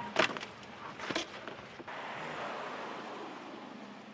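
Two sharp clicks about a second apart, then a steady hiss of outdoor background noise that slowly fades.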